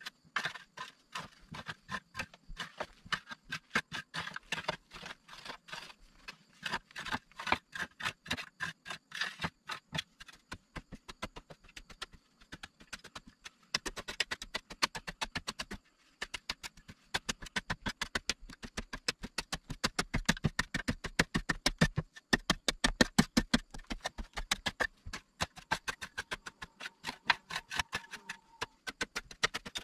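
A long-handled digging tool scraping and chipping into packed earth in rapid, repeated strokes, louder in the second half.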